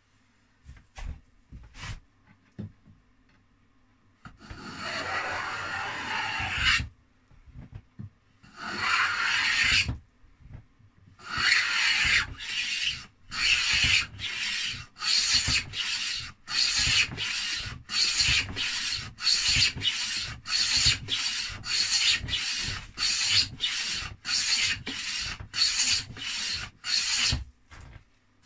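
Handmade beech boxed rebate plane cutting a rebate along a wooden strip. A few light knocks come first, then two long strokes, then a quick run of short strokes at about two a second.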